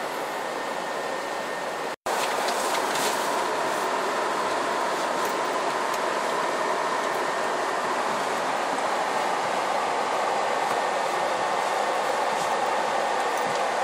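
Steady rushing hum of a double-decker coach's engine and ventilation. It cuts out for an instant about two seconds in and comes back slightly louder.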